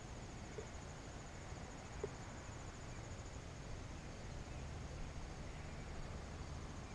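Quiet outdoor background: insects trilling steadily at a high pitch over a low steady rumble, with one faint click about two seconds in.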